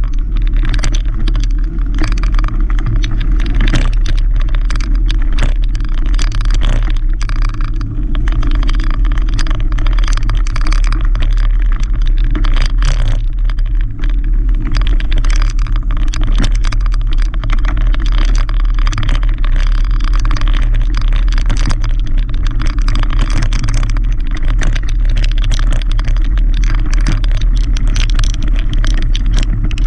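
Mountain bike rolling fast over a rough dirt and gravel track: a constant loud low rumble of tyres and wind on the mounted camera, with a dense rattle of clicks from the bike and loose stones.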